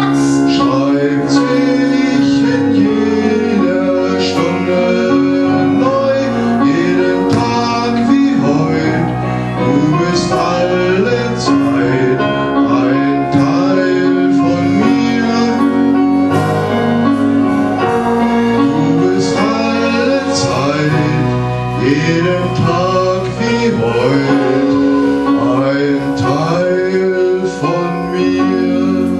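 A song from a stage musical: singing over instrumental accompaniment with a steady beat.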